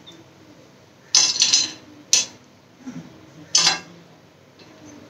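A few short clicks and scrapes on a serving plate as toasted peanuts are set down on it and the plate is handled.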